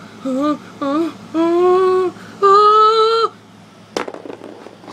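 A voice singing four wordless notes, two short and then two held, with small slides in pitch. About four seconds in there is a single sharp click followed by brief rustling.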